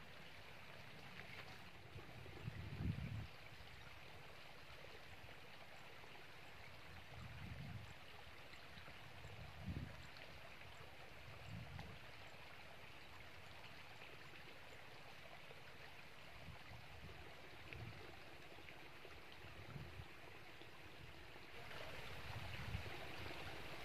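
Faint, steady rush of flowing river water, growing slightly louder near the end, with a few short dull low thumps.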